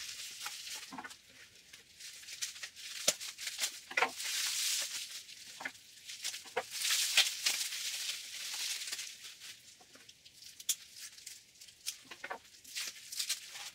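Plastic bubble wrap crinkling and rustling as it is pulled off and cut away with scissors, with many scattered sharp crackles and clicks.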